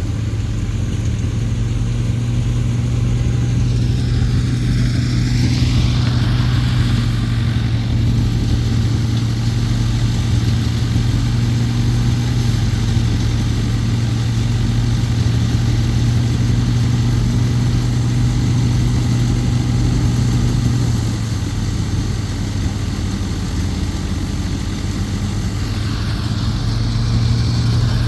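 Combine harvester engine running steadily at a constant low hum; it eases off a little about three quarters of the way through and picks up again near the end.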